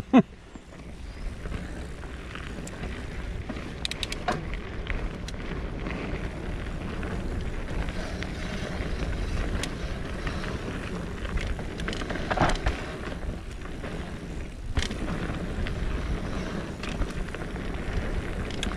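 Mountain bike descending a dirt forest trail: steady tyre noise on the dirt and wind buffeting the microphone, with the bike knocking and rattling over bumps, a few sharper knocks standing out.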